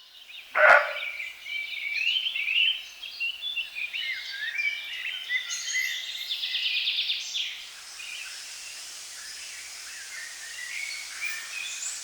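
Several songbirds chirping and singing, with a fast trill about six seconds in, over a soft steady hiss that grows stronger about halfway through. One loud, short sound comes just under a second in.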